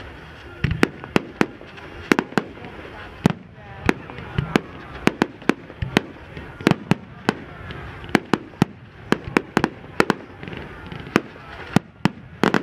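Fireworks going off: a rapid, irregular run of sharp cracks and bangs, several a second, with a few deeper thuds among them.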